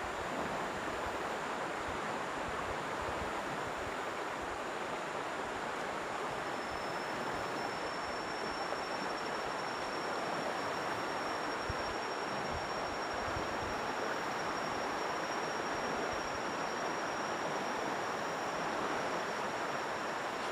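River water flowing steadily, an even rushing noise. A thin, high steady whine joins about a third of the way in.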